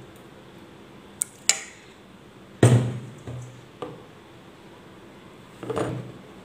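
A steel ladle and spoon clink and knock against bowls and a plastic popsicle mould while sago and coloured liquid are scooped and poured. There are about half a dozen separate clinks. The loudest comes about two and a half seconds in and has a short ring after it.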